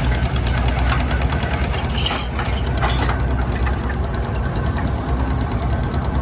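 Antique Insley dragline excavator running, its engine chugging steadily, with a couple of short metallic clanks from the machinery about two and three seconds in.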